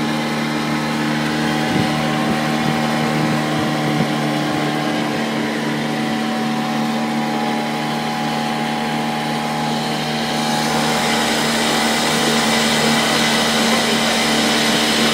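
Small boat's motor running steadily at an even speed, with water and wind hiss over it. The hiss and overall level rise a little about ten seconds in.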